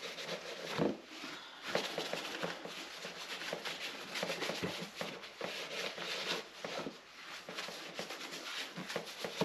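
An alcohol-dampened wipe rubbed back and forth over a dirt bike's plastic side panel, an irregular run of rubbing strokes, with one louder bump about a second in.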